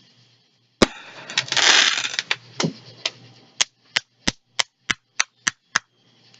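Fireworks going off: a loud bang, a crackling burst, then a quick run of eight evenly spaced sharp pops, about three a second, near the end.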